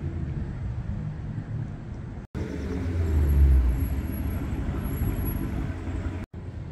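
Street traffic: cars running by with a steady low rumble, loudest about three seconds in. The sound cuts out briefly twice.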